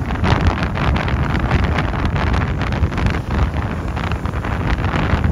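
Wind buffeting the microphone: a steady, rough rumbling noise.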